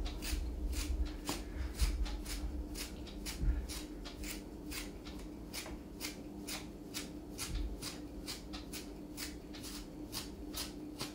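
Hand-stripping (trimming) of an Airedale terrier's wiry coat: quick, even strokes pulling through the hair, about three a second, over a faint steady hum.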